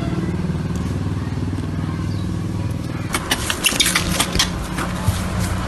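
A steady low engine-like hum runs throughout. From about three seconds in comes a cluster of sharp clicks and crackles, as of a monkey brushing against the microphone.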